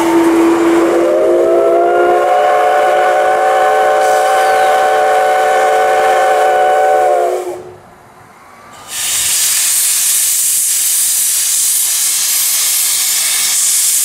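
Steam locomotive C56 160 blowing its whistle: one long chord-like blast of about seven seconds that slides up in pitch as it opens. After a short gap, steam hisses loudly and steadily from the open cylinder drain cocks.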